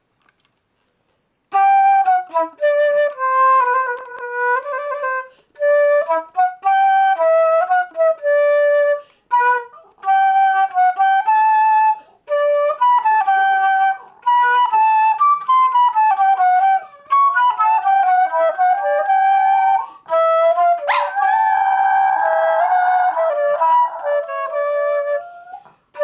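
A tune played on a wind instrument, as a run of clear held notes with short breaks between phrases. About twenty seconds in, a Norfolk terrier joins with a rising howl that wavers along with the music.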